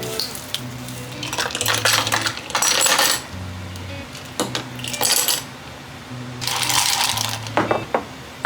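Kitchenware clinking and rattling in several short bursts, like glass and utensils being handled, over background music with a steady bass line.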